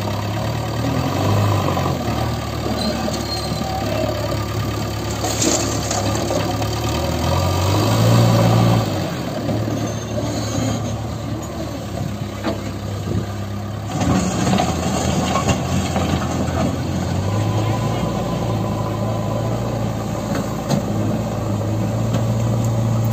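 JCB 3DX backhoe loader's diesel engine running under working load. It revs up about a third of the way in and again over the last several seconds.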